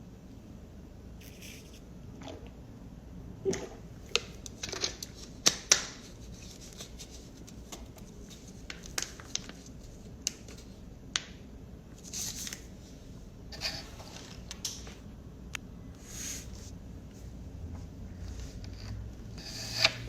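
Scattered light clicks and rustles over a low steady hum, with a denser run of sharp clicks a few seconds in.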